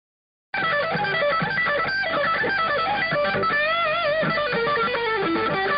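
Loud electric guitar music starting about half a second in: a lead line of held notes with string bends and vibrato.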